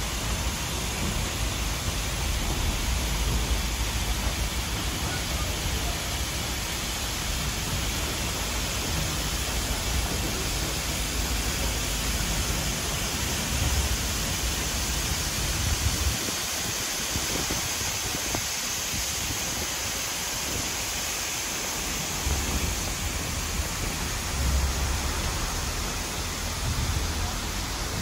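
Steady rushing noise heard from a moving train carriage: air streaming past the open window and over the microphone along with the train's running noise. Low rumbling gusts come and go and ease off for several seconds past the middle.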